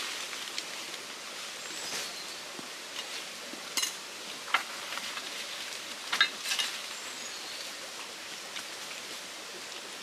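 Steady rush of a flowing stream, with a few sharp knocks and clicks close by, around four seconds in and again around six seconds in, as a tool and cut palm fronds are handled.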